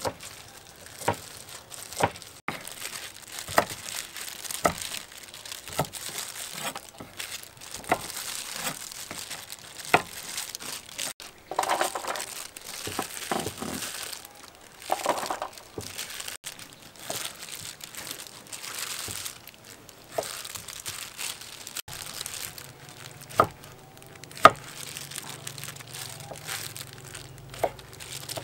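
Kitchen knife chopping vegetables on a wooden chopping board: yardlong beans being cut into short pieces, with sharp knocks of the blade on the board at an uneven pace of about one a second.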